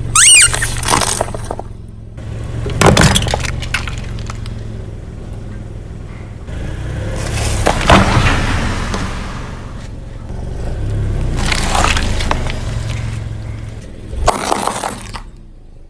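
Car tyre rolling over and crushing brittle objects: a run of separate crunching, cracking breaks, about five in all, some building up gradually before they give, over a steady low engine hum.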